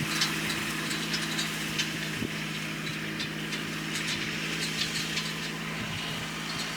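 Kubota tractor's diesel engine humming steadily while tedding hay, with scattered faint clicks above the hum.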